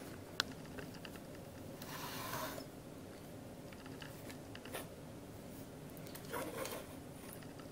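Quiet handling of plastic toy vehicles on a tabletop: a light click about half a second in, then a few brief rubbing and scraping sounds as the models are slid and set in place.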